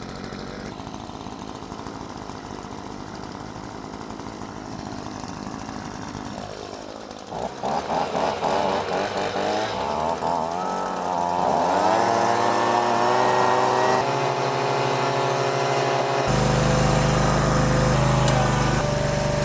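Steady machine noise, then about seven and a half seconds in a handheld leaf blower's small engine sputters and revs up, climbing in pitch, and settles into a steady run at high speed.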